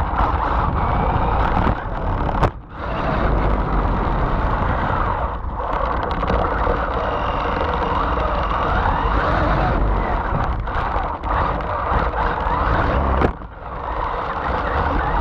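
Electric RC rally car driving hard on pavement, heard from a camera mounted on the car: a loud, steady rush of tyre, wind and drivetrain noise with a motor whine that rises and falls as the throttle changes. A sharp knock about two and a half seconds in, and a brief drop in the noise late on.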